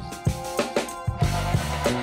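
Background music with a steady drum beat and bass line.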